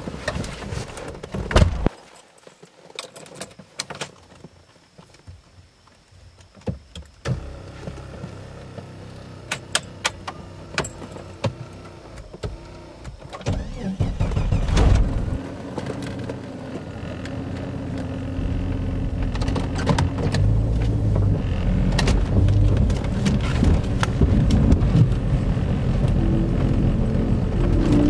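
Sharp clicks and knocks from the car's cabin as the driver settles in, with keys jangling. About a quarter of the way through, the engine's low hum starts, and it grows gradually louder over the second half as the car gets under way.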